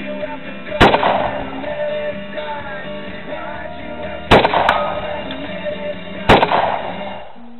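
Three rifle shots from an AR-15 in .223, each with a short echo: about a second in, again some three and a half seconds later, and once more two seconds after that. Rock music plays underneath.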